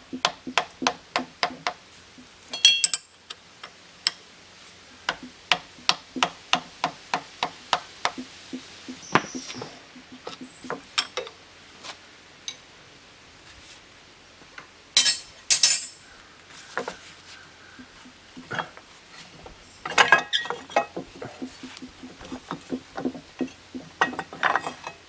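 Hammer tapping on the metal parts of a drill press to knock loose tight-fitting parts. At first the blows come in an even run of about three a second, then they are scattered, with a few louder clattering clusters.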